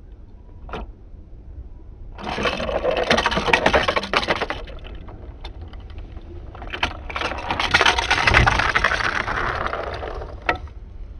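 Die-cast toy car rolling and scraping down a plastic play-set track, a rattling run with many small clicks, in two stretches of about two and three seconds.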